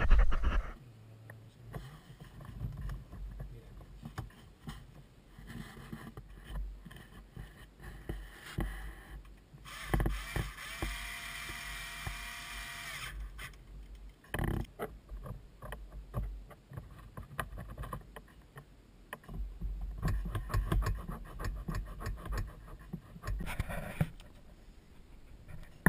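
Clicks and rustles of cables and hoses being handled and routed inside a jet ski hull. Partway through, a Bosch cordless drill-driver spins up and runs steadily for about three seconds, the loudest sound.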